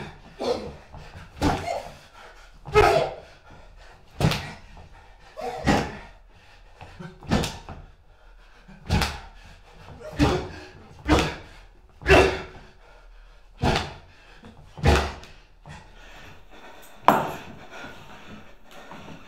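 A series of heavy thuds or slams, about a dozen, coming roughly one every second and a half. The last comes alone after a longer gap, near the end.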